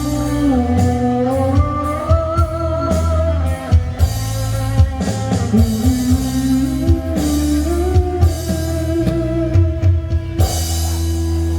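Instrumental band music with a drum kit and guitar: a melody line slides between notes over a steady bass and a regular drum beat.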